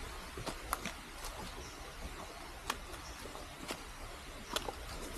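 Scattered footsteps and trekking-pole clicks on a leaf-covered forest trail, a few sharp taps at irregular intervals over a steady background hiss.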